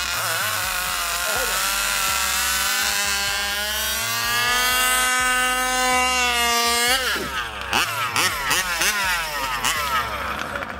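Small two-stroke gas engine of a 1/5-scale RC Baja car revving at the start line: the pitch climbs for about four seconds and holds high, drops off sharply about seven seconds in, then a run of quick throttle blips follows.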